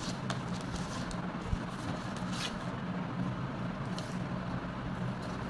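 A few faint, short scratching strokes of pattern marking, about a second or two apart, over a steady low hum.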